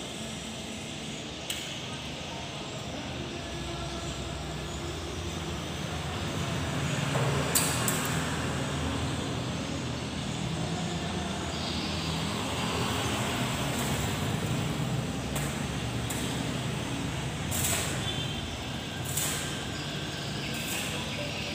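Stick arc welding on a steel window grille: the electrode's arc crackling and hissing steadily, with a few sharp clicks along the way.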